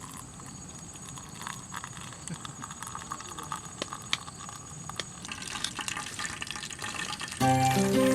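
Outdoor campsite ambience: a steady high insect drone with scattered clicks and rustling under a soft noisy hiss. Background music starts about seven seconds in.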